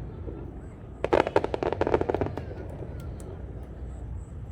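Fireworks crackling: a dense, rapid run of crackles starts about a second in and lasts about a second and a half, followed by two single pops.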